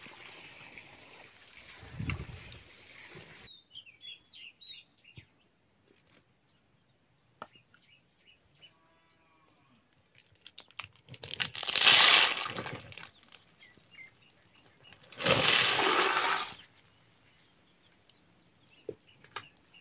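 Boiled water and cooked river snails tipped out of a clay pot onto wet ground: two splashing pours, each a second or two long, a few seconds apart. A few short bird chirps come before them.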